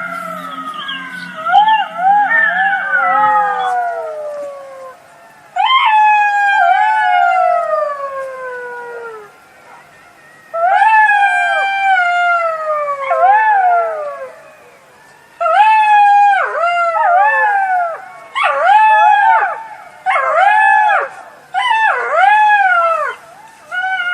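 Jackals howling: long wailing calls that slide down in pitch, then a run of short, quick yelping calls that each rise and fall.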